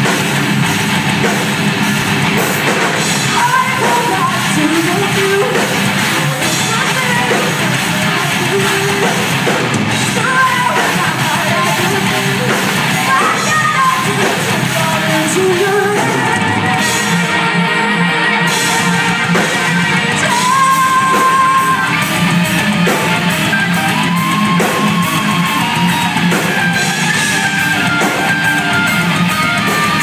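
Live rock band playing a heavy rock song with electric guitars, bass and drums, a woman singing lead over it.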